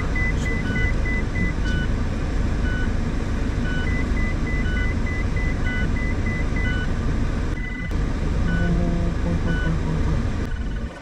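Mazda Roadster driving, a steady low rumble of engine and road noise, with repeating electronic beeps over it: a quick beep about three times a second that stops about a second and a half in and starts again for a few seconds, and a slower beep about once a second.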